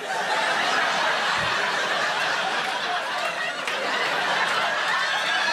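Audience laughing together in a crowd, a dense, steady wave of laughter.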